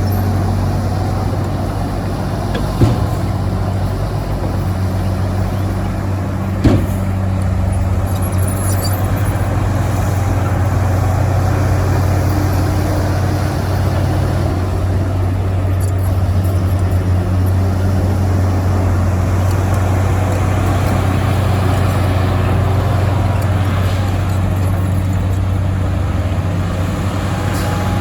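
Heavy diesel earthmoving machinery running steadily with a strong low hum, with two sharp knocks about three and seven seconds in.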